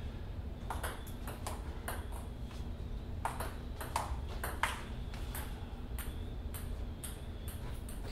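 Table tennis rally: the ball clicking sharply off paddles and table in quick, irregular succession, starting about a second in.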